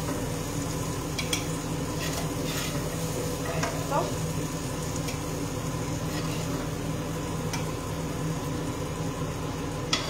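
Zucchini and cherry tomatoes sizzling faintly in a frying pan over a steady low hum, with a few light clicks and taps as pieces are lifted from the pan onto a plate.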